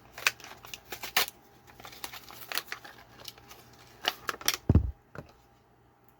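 Plastic blister packaging of a diecast model car being opened: a run of irregular plastic crackles and sharp clicks, with a dull thump just before the five-second mark.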